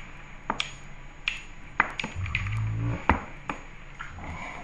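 Fake plastic claws on the fingertips clicking and tapping against each other in a few scattered sharp ticks. A short low hum of a voice comes a little after two seconds.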